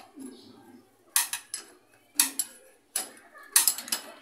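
Sharp metal-on-metal knocks with a brief ring, four of them about a second apart beginning about a second in, as a motorcycle's rear axle bolt is driven back through the wheel hub.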